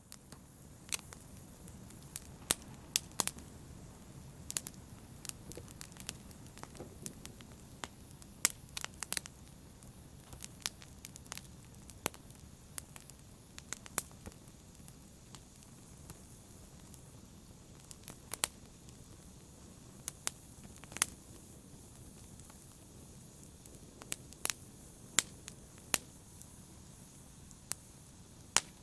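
Wood fire burning in a fireplace: a steady low hiss and rumble with irregular sharp crackles and pops, a few of them much louder than the rest.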